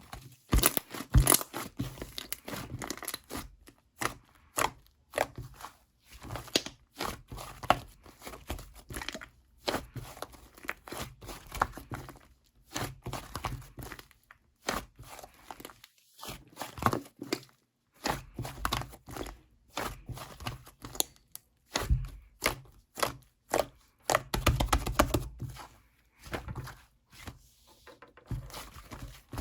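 Hands squeezing, stretching and pressing slime: irregular sticky crackles, pops and snaps in clusters, with short pauses between them.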